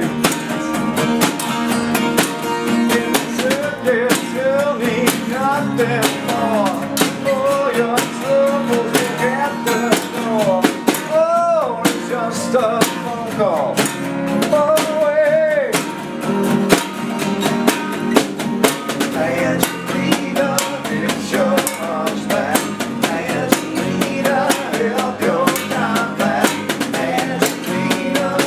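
Live acoustic rock band: several strummed acoustic guitars and a snare drum played with sticks, with a sung melody over them.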